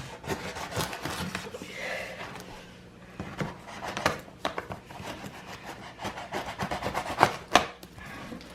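Cardboard box being handled: irregular scraping, rubbing and tapping, with two sharp knocks near the end.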